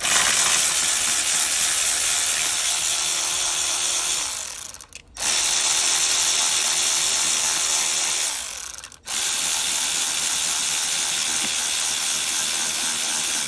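A tool or mechanism running in three long bursts of about four seconds each, each starting abruptly and trailing off, with a harsh hissing whirr.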